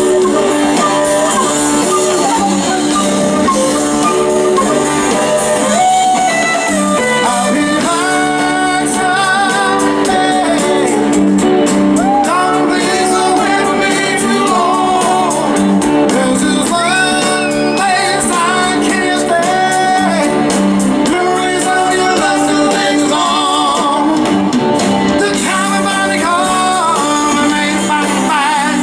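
Live Southern rock band playing with electric guitar and drums, a flute playing near the start, and a male voice singing.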